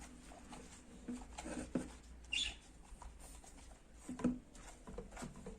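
Shaving-foam slime being stirred and handled in a bowl: scattered soft clicks and sticky squelches, with a brief squeak about two and a half seconds in.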